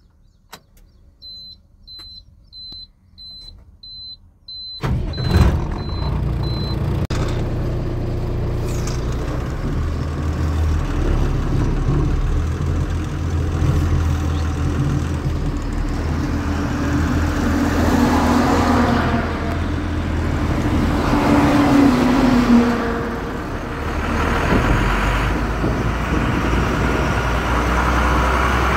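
Truck dashboard warning buzzer beeping about twice a second with the key on, then about five seconds in the diesel engine starts; the beeps stop a couple of seconds later. The engine then runs under load, its note rising and falling as the loaded truck pulls away and drives off.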